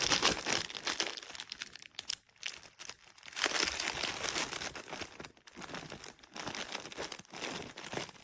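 Crinkly fabric chip-bag snuffle toy crinkling and rustling in irregular bursts as it is rummaged and pushed about, with short pauses in between.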